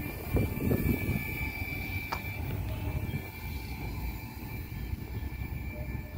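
NCA freight train's tank wagons rolling along the rails, a steady low rumble with a thin high squeal running through it. A single sharp click comes about two seconds in.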